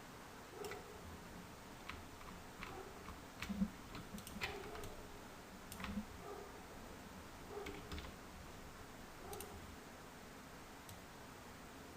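Faint, irregularly spaced clicks of a computer mouse and keyboard, about a dozen in all, made while placing points on a pen-tool path.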